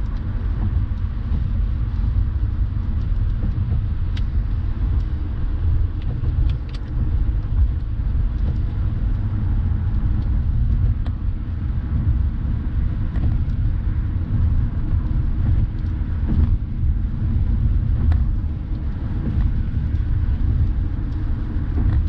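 Steady low rumble of road and engine noise inside a moving car's cabin, with tyres running on wet pavement.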